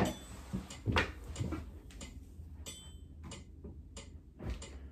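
Handling noise while a bass and amp are being set up: a sharp click right at the start, another knock about a second in, then a few faint taps over a steady low hum.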